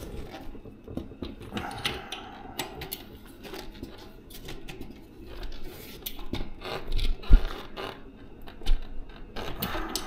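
Irregular metal clicks and clinks from tools and bicycle rear-hub parts being handled, with a louder knock about seven seconds in.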